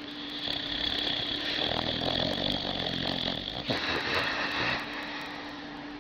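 Dog snoring loudly in its sleep: one long snore, then a shorter one about four seconds in, dying down near the end.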